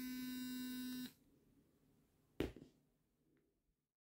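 Colgate electric toothbrush motor buzzing steadily, cutting off about a second in. About a second later there is a single sharp click or knock.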